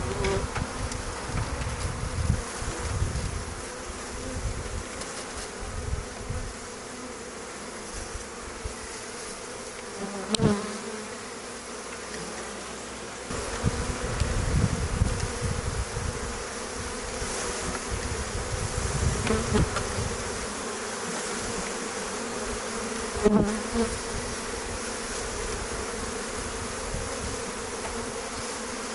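A mass of honey bees buzzing steadily as a package colony is brushed out of its package into a hive box. Gusts of wind rumble on the microphone, and there are two sharp knocks, one about a third of the way in and a louder one about four-fifths of the way through.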